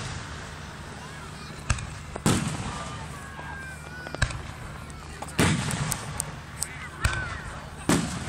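Aerial firework shells bursting overhead: about six reports, deep booms that roll away in a long echo, with sharper single cracks between them.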